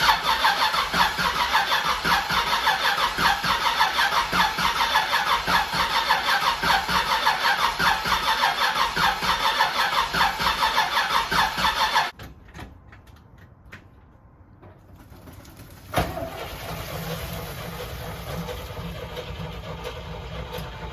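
Starter motor cranking the supercharged 350 small-block V8 in an even, pulsing rhythm, with the ignition disabled (distributor wire disconnected) so it turns over without firing, priming fuel and oil. The cranking stops abruptly about twelve seconds in. After a few clicks, a steadier, quieter running sound starts suddenly with a thump near the end.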